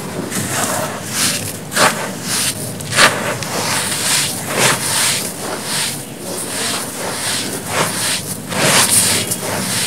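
Dry, black, grainy crumbly material being scooped and crushed by bare hands: a continuous gritty crunching and rustling of loose grains, with sharper crunches about two seconds in, three seconds in and near the end.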